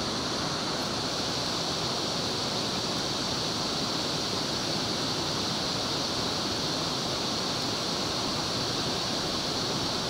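A mountain river rushing, a steady, unbroken noise.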